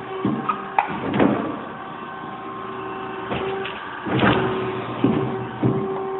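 Jorns Norma-Line hydraulic sheet-metal folding machine running: a steady machine hum with a series of clanks and rattles from its moving parts, loudest about a second in and again around four to five seconds in.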